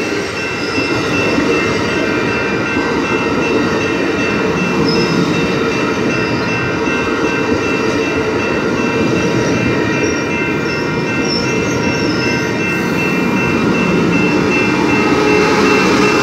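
Passenger rail cars rolling past, a steady rumble of wheels on rail with brief high squeals, under steady ringing tones from the grade crossing's warning bells. Near the end the trailing Siemens SC-44 Charger diesel locomotive draws level and the sound swells.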